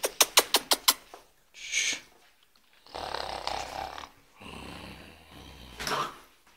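Boxer dog breathing noisily in several rough, grunting bursts. It opens with a quick run of about eight sharp clicks.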